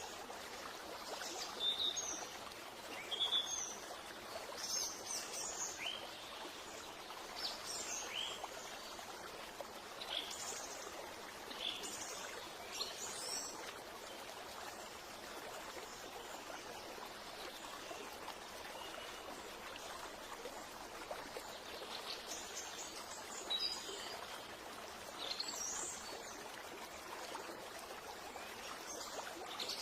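Birds chirping in short scattered calls over the steady rush of running water, like a nature ambience of a stream. The calls come in clusters and pause for several seconds midway.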